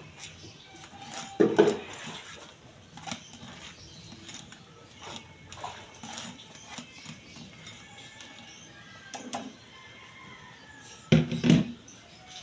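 Kitchen clatter from a plastic colander and cookware while noodles are shaken out into a pan: scattered light knocks and clicks, with louder knocks about a second and a half in and again near the end.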